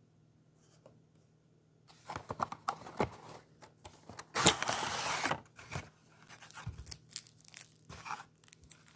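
Cardboard packaging being opened and a plastic-bagged figure pulled out of its box: crinkling plastic and rustling cardboard that start after about two seconds, with one louder stretch lasting about a second around the middle.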